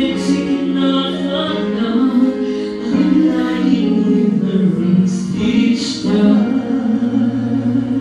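A vocal trio of two women and a man singing in harmony into handheld microphones, holding long wavering notes with short breaks between phrases.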